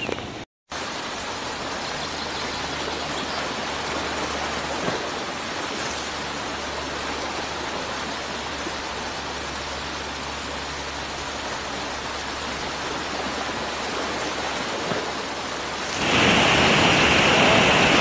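Steady rush of a river waterfall pouring in muddy flood over rock cascades. It cuts out for a moment right at the start and grows louder and brighter about sixteen seconds in.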